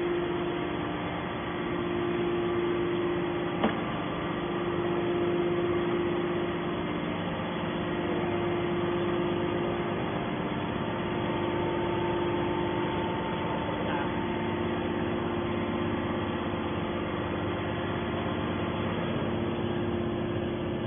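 Hydraulic scrap metal baler's power unit running with a steady hum and held tone, with one sharp click a few seconds in.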